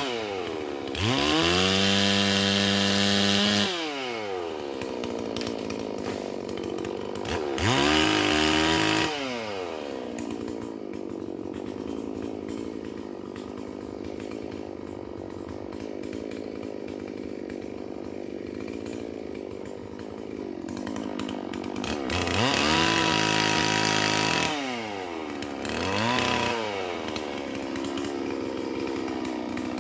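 Holzfforma G444 two-stroke chainsaw, a clone of the Stihl MS440, idling and revved up to full throttle three times, holding high revs for a second or more each time before dropping back to idle, with a short blip of throttle near the end.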